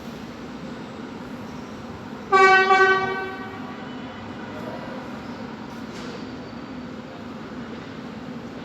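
A Metrotren Rancagua commuter train's horn sounds one loud blast of about a second on a single note, over the steady rumble of the train.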